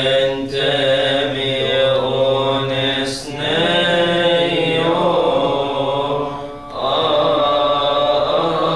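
Coptic Orthodox liturgical chant: a man's voice sings long, drawn-out melismatic notes that bend slowly in pitch, with two short breaks for breath, about three seconds in and again near seven seconds.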